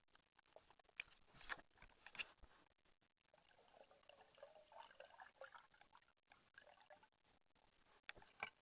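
Faint, muffled water sloshing and gurgling around a waterproof camera housing at the surface, with scattered taps and knocks of handling on the housing, a cluster in the first few seconds and more near the end.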